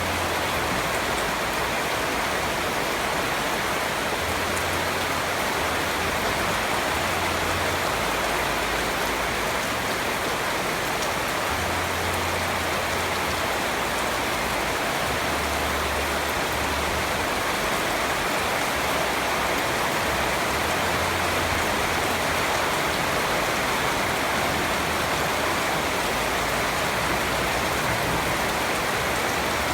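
Steady rain falling, an even, unbroken hiss of many drops with no let-up.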